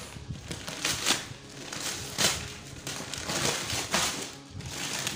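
Gift wrapping paper being torn and crumpled by hand, in repeated rips and rustles.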